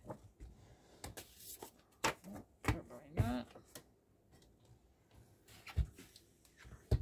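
Sheets of patterned paper being lifted, slid and set down on a paper trimmer and cutting mat, with scattered light knocks and rustles spread across the few seconds.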